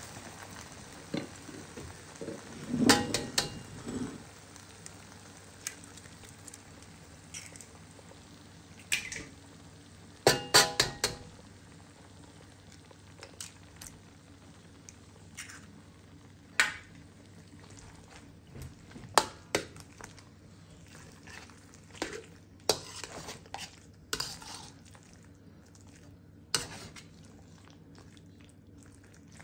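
A metal spatula scrapes and clanks against a steel wok during stir-frying, over a light sizzle of beef frying. The sizzle is strongest at the start. Clusters of clanks come about three seconds in and again around ten seconds, then single knocks every few seconds.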